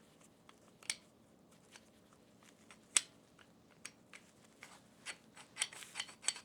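Parts of an EasyRig Mini Max camera support clicking and clacking as they are handled and fitted together during assembly. There are single sharp clicks about one and three seconds in, the second the loudest, then a quick run of clicks near the end.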